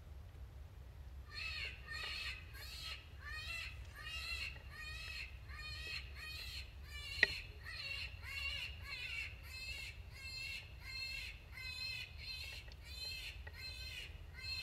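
Electronic predator caller playing a call of short, arched notes repeated about three a second, starting about a second in. A single sharp tap comes about halfway through.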